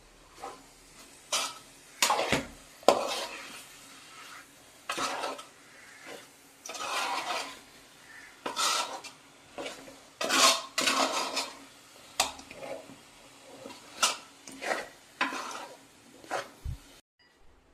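A spoon stirring in a cooking pan, with irregular clinks and scrapes against the pan's sides.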